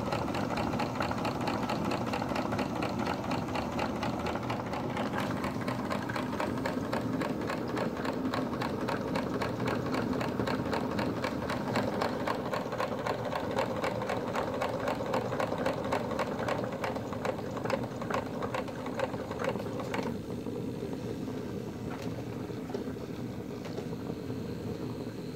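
Four-cylinder model live steam engine running with a rapid, even mechanical beat. The beat spaces out in the second half, and the higher clatter drops away about 20 seconds in.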